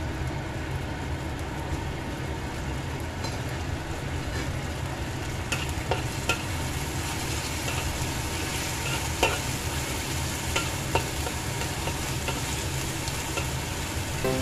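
Sauce sizzling as it fries in a wok, stirred with a metal spatula, with sharp clinks and scrapes of the spatula on the pan that become more frequent from about five seconds in.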